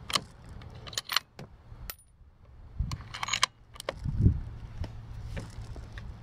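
Metallic clicks and clinks of a bolt-action rifle being loaded: cartridges handled and the bolt worked, with a dull knock about four seconds in.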